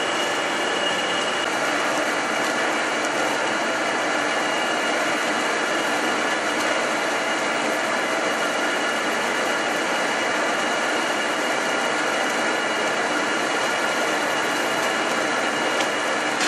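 WSM-1300 film slitting machine running at steady speed: rollers and rewind shafts turning as printed plastic film is slit into narrow strips and wound, making an even mechanical whir with faint high tones.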